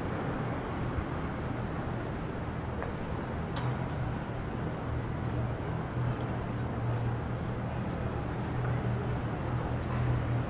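City street ambience: steady traffic noise with a low engine hum that grows stronger in the second half, and a single sharp click about three and a half seconds in.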